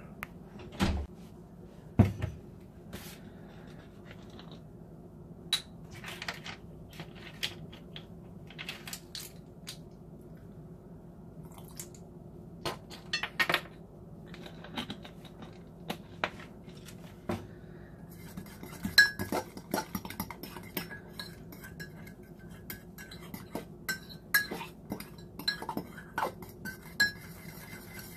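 Metal fork clinking and scraping against a ceramic mug while stirring a thick batter, with scattered knocks of utensils on a table. The clinks come quicker and ring out more in the last ten seconds, over a steady low hum.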